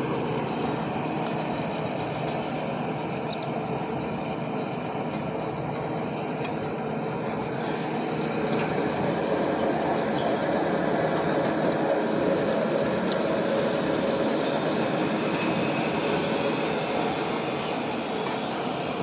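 Truck-mounted hydraulic borewell pipe-lifting rig running steadily: engine and hydraulic pump under load. It grows a little louder about halfway through, then eases near the end.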